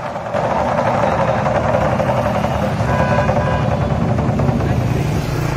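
A row of large lion-dance barrel drums played together in a fast, continuous roll, a dense steady drumming with no separate beats standing out.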